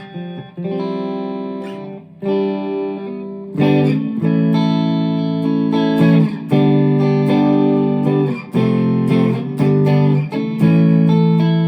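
Chapman ML1 Modern Standard electric guitar playing a tune: ringing chords and single notes, changing every half second to a second, in its unadjusted out-of-the-box setup.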